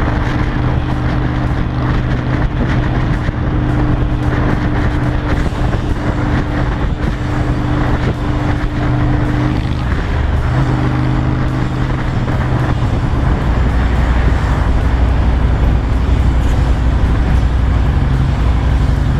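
Honda Shadow 750 V-twin running through its new modified exhaust with a fishtail tip, a loud, steady deep engine note with wind and road rush while the bike is underway. About two-thirds of the way in the note changes and a deeper rumble comes in.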